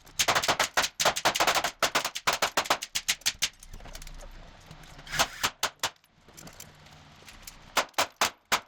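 Rapid string of sharp .22 LR gunshots, several a second at first, then a few scattered shots later on.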